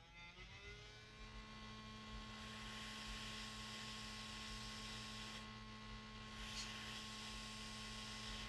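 Hot air rework station blowing over a laptop motherboard to lift off small ceramic capacitors suspected of shorting to ground: its fan whine rises in pitch in the first second, then holds as a steady hum with a hiss of moving air.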